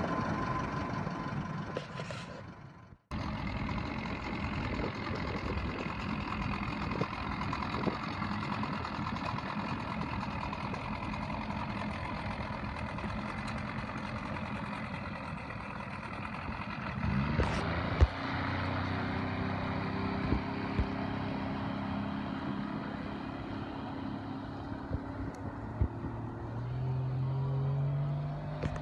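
Johnson 70 outboard motor running steadily, with a single sharp knock about two-thirds of the way through. Near the end it revs up, its pitch rising as the boat gets under way.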